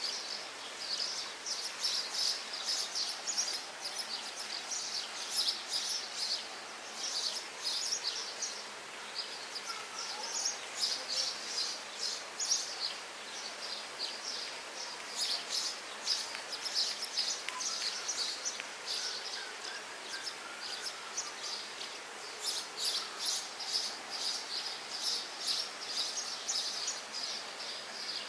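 Small birds chirping in quick, busy runs of high notes, on and off throughout, over a faint steady background hiss.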